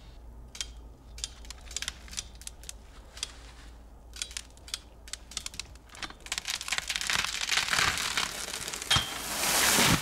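A tree jack's lever clicks as it is worked in the felling cut of a birch. Then the hinge wood crackles and tears more and more densely as the tree tips over, ending in a loud crash of the trunk and branches landing in brush.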